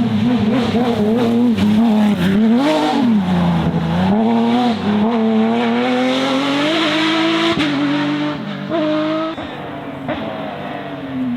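Porsche 997 GT3 rally car's flat-six engine driven hard, its revs swinging up and down repeatedly. About seven and a half seconds in, the revs drop suddenly, and the engine is quieter over the last couple of seconds.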